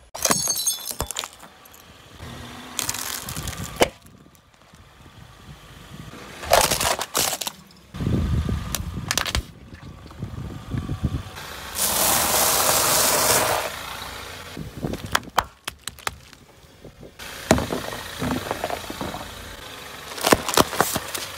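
Car tyre rolling over objects laid on asphalt and crushing them: a series of separate crunches, cracks and crackles, with one longer steady stretch of crunching near the middle.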